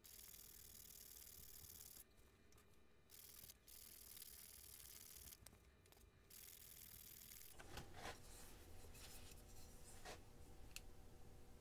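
Faint, sped-up scratchy hiss of a foam sanding block rubbing a small turned wooden piece, cutting in and out abruptly. About two-thirds of the way in it gives way to a few faint clicks and knocks.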